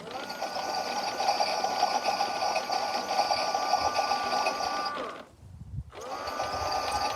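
Toy washing machine's small electric motor spinning the drum. It starts with a rising whine and runs steadily for about five seconds, stops, then starts up again about a second later.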